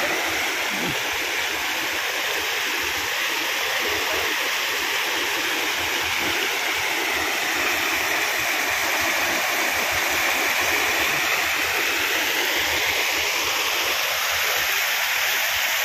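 Steady rush of water flowing along a village stream channel that is running high after heavy rain.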